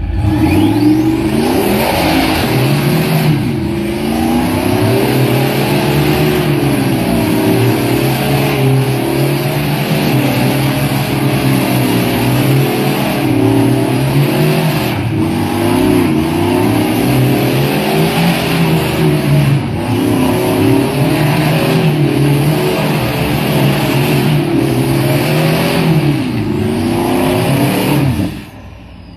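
Engine of a lifted off-road pickup truck revving hard and unevenly as it crawls over a rough slope, its pitch rising and falling again and again. The sound cuts off abruptly near the end.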